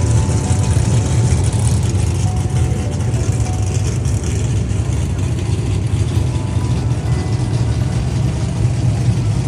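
Formula Drift cars running on the track, a loud, steady engine noise with a heavy low rumble.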